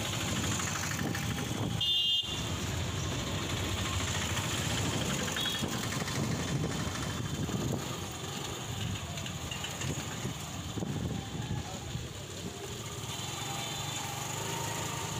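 Street traffic noise: motor vehicle engines running, with faint voices in the background. A short high-pitched tone sounds about two seconds in.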